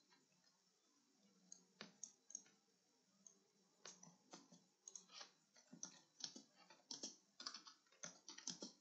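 Faint computer keyboard keystrokes and mouse clicks. A few scattered clicks at first, then quicker, irregular clicking from about four seconds in.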